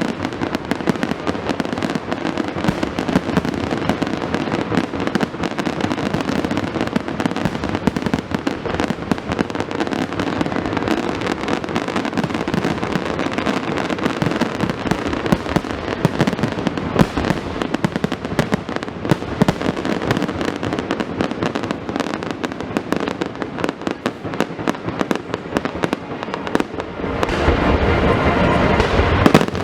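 Fireworks display: a dense, continuous barrage of bangs and crackling, growing louder with a deeper rumble near the end.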